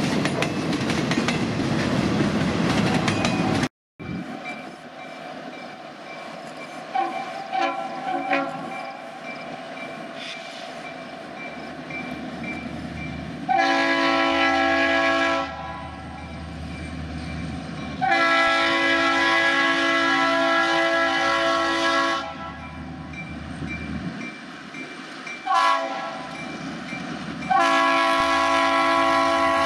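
A freight train of flatcars loaded with wind turbine blades rolls past, its wheels clacking over the rail joints. After a short break, diesel locomotives approach sounding a multi-tone air horn in the long, long, short, long grade-crossing signal.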